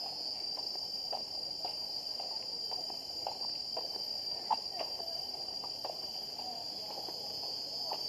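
Steady high-pitched drone of insects, with short irregular clicks and chirps scattered throughout, one sharper click about four and a half seconds in.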